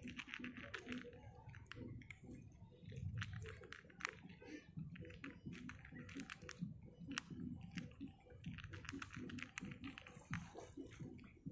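A cat crunching dry kibble: a quick, uneven run of crisp crunches with short pauses.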